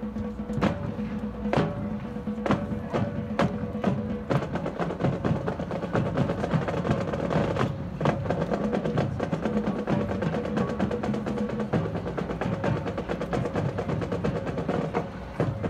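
Marching band percussion playing: sharp, irregular strikes and drum rolls over sustained low pitched tones.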